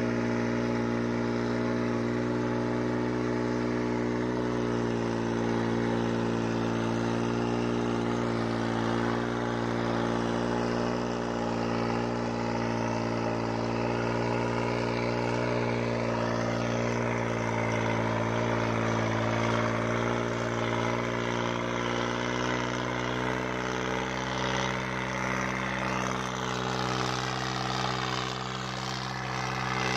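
New Holland 3630 tractor's diesel engine running steadily under load as it pulls a disc harrow through tilled soil.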